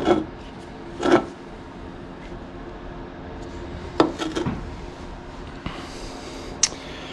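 A few light knocks and clunks as an aluminium drink can is handled on a steel workbench, with a brief hiss and a sharp click near the end.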